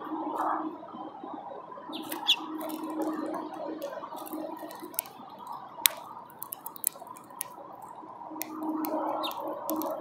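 Sharp clicks and taps of a male house finch pecking and cracking seeds on a platform feeder, close to the microphone, with two brief high chirps about two seconds in and near the end, over a steady background hum that swells and fades.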